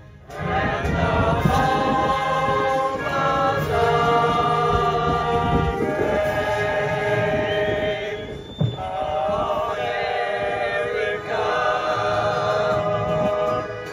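Choir singing in harmony, in long sustained phrases with a short break between phrases about two-thirds of the way through.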